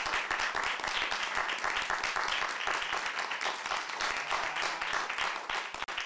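A small seated audience clapping their hands in steady applause, dense overlapping claps with no single rhythm.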